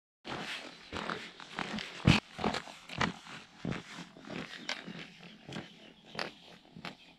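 Footsteps crunching on a loose, stony path, an uneven run of about two steps a second. They are loudest in the first few seconds and then fade as the walker moves away.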